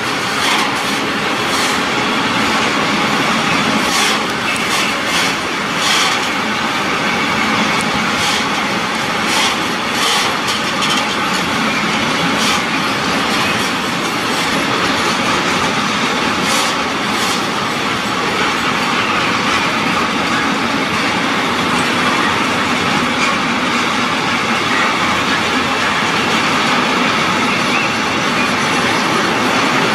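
Container freight train's wagons rolling past at steady speed: a continuous noise of steel wheels on rail, with scattered sharp clicks during the first half.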